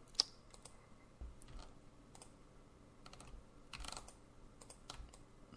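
Faint, scattered clicks and taps from a computer mouse and keyboard, a few at a time, with a short quick cluster a little before four seconds in.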